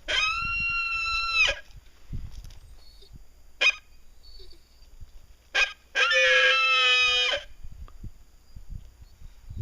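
Dog whining: one long, steady, high whine, two short whimpers, then a second long whine that wavers in pitch.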